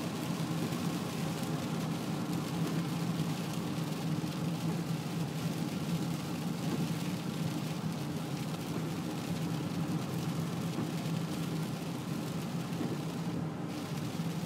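Steady noise inside a moving car in heavy rain: engine and tyres on the wet road, with a hiss of rain and spray.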